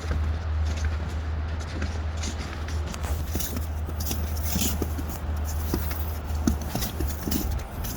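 Slow, careful footsteps crunching on snow, several people walking, with a steady low rumble under them throughout.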